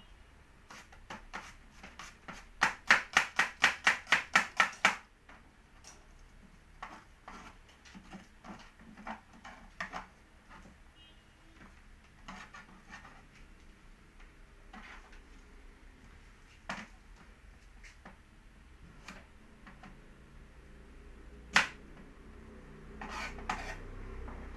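Kitchen knife chopping onion on a plastic cutting board. A quick run of about ten strokes, roughly four a second, comes a couple of seconds in, followed by scattered single taps and a sharp knock near the end.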